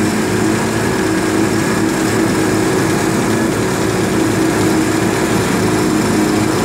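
Amphibious vehicle's engine running steadily as the vehicle cruises on the water, an even, unbroken engine hum.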